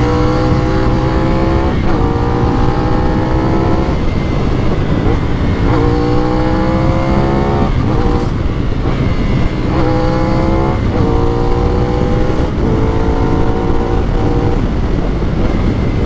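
CF Moto 450NK's 270-degree parallel-twin engine pulling under acceleration. Its pitch rises steadily, drops at each of several upshifts and climbs again, over steady wind rush.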